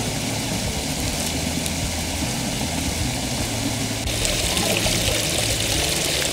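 Small woodland stream running steadily over a stone cascade into a pool, with a continuous splashing rush. About four seconds in it gets louder and hissier as the sound comes from right beside the falling water.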